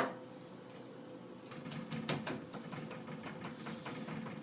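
Pepper being put on a fish fillet: a sharp click at the start, then a run of small, irregular clicks and rattles from the pepper container.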